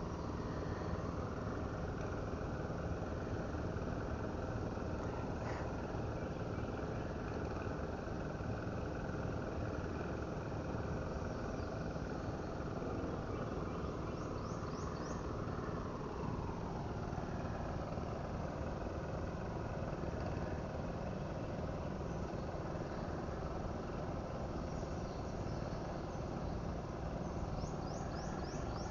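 An engine running steadily in the distance, its pitch sliding lower about halfway through. A few short, high chirps come near the start and near the end.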